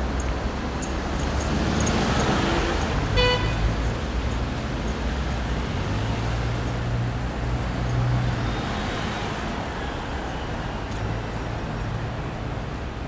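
Busy city street traffic: a steady rumble of cars and engines, with a vehicle passing close a couple of seconds in and one short car horn toot just after.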